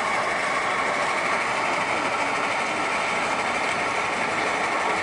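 KAMAZ truck's diesel engine running steadily at low revs as the truck creeps forward.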